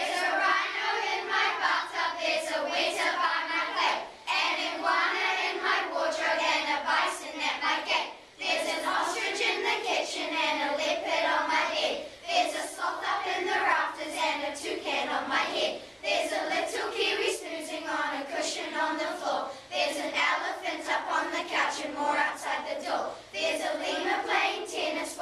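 A group of children singing together in unison, in phrases of about four seconds.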